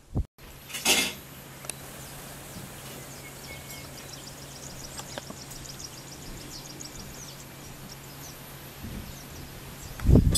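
Quiet outdoor bush ambience with a fast run of high-pitched chirps from about four to seven seconds in, over a low steady hum that fades out near nine seconds. A brief whoosh comes about a second in, and a loud, low rushing noise sets in at the very end.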